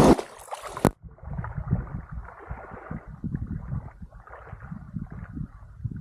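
Water lapping and gurgling unevenly, with a sharp click about a second in.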